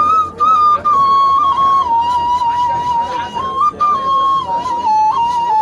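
Ney, the Arabic end-blown reed flute, playing a slow solo melody of held notes that step gradually downward, with a couple of short breaks for breath near the start.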